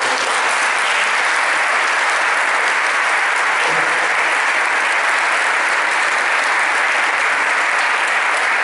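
Audience applause: many people clapping together, steady and sustained.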